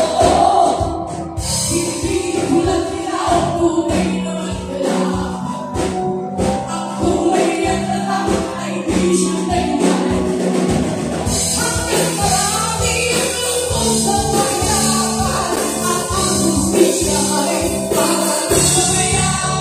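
A live band playing a song: a woman singing into a microphone over electric guitar, bass and a drum kit, heard through the PA.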